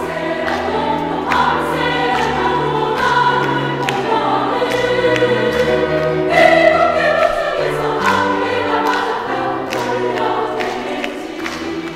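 Women's choir singing a lively Korean song in parts, with piano accompaniment and a steady percussive beat.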